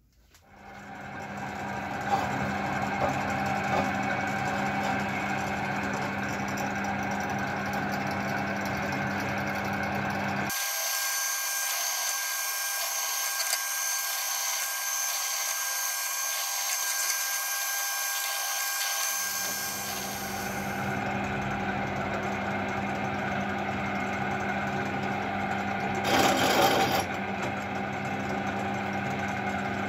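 Benchtop drill press running steadily while it drills holes in a metal plate, with an even motor hum. For a stretch in the middle the low hum drops away under a high hiss, and a short burst of noise comes near the end.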